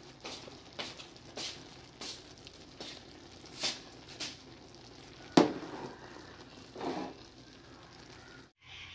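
A slotted metal spoon stirring cooked rice in a metal pot: a series of light taps and scrapes of the spoon against the pot, about one or two a second, with one sharper clank a little past the middle.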